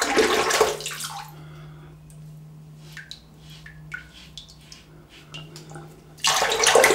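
Tap water running into a sink as a safety razor is rinsed under it, stopping about a second in. A quieter stretch follows with a low hum and a few short, light scratches of razor strokes and drips, and the tap runs again near the end.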